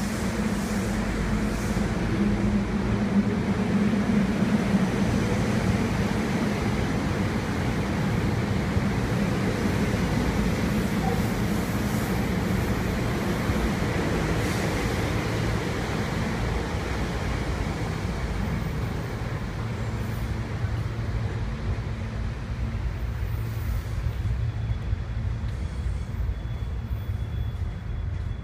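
SEPTA Budd Silverliner IV electric multiple-unit train pulling out of the station: a steady low hum from the motors over rumbling wheels on the rails, easing slowly as the cars draw away.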